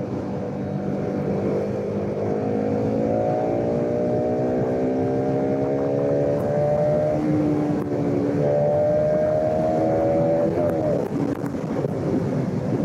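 Bajaj Pulsar RS200 BS3's single-cylinder engine pulling under way, its pitch climbing steadily as the bike accelerates. It dips at a gear change about seven seconds in, climbs again, then falls away just before eleven seconds in as the revs drop.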